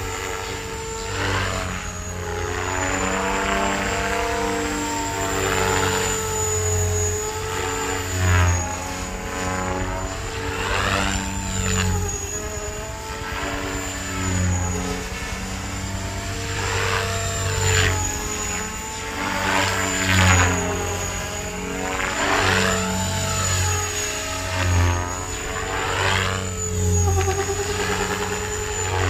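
KDS Innova 550 electric RC helicopter flying 3D aerobatics in idle-up on short 520 mm main rotor blades. The rotor and motor sound swells and fades in pitch and level as it swoops and passes, over a steady high whine, with the loudest passes about 8 and 20 seconds in.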